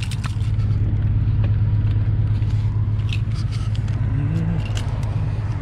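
A steady low rumble runs throughout, with scattered small clicks and scrapes of a key being worked into a door lock.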